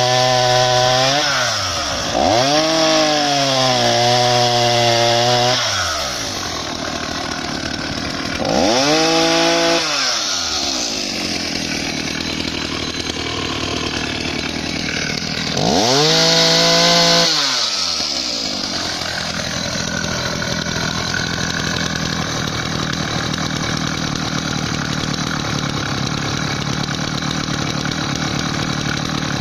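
Vintage Husqvarna 480 CD two-stroke chainsaw, on its original 12-bar-compression engine, cutting alder at high revs. Its note dips and climbs again several times as the throttle is eased and reopened. From about two-thirds of the way through it runs steadily at a lower speed.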